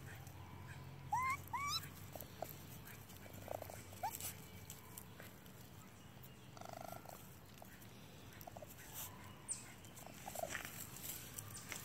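Baby raccoons calling: two quick rising chirps just after a second in, then scattered short chirps and a brief purring trill a little past the middle.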